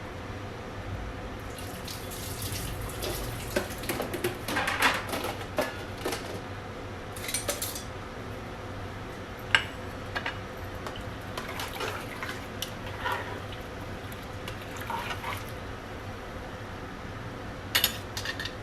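Water running and splashing in a kitchen sink in bursts, with dishes and utensils clinking. There is a sharp clink about halfway through and two more clinks near the end.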